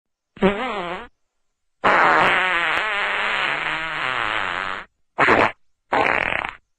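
Fart sound effects: a short wavering fart, then a long one of about three seconds whose pitch wobbles up and down, then two short ones near the end, with silence between each.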